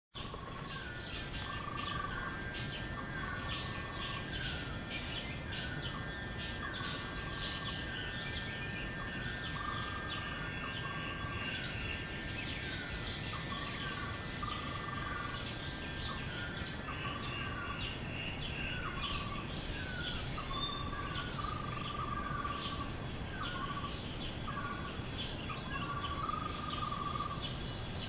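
Tropical forest ambience: insects keep up a steady high-pitched drone, while a bird repeats a short two-note call, a falling higher note then a held lower one, roughly once a second.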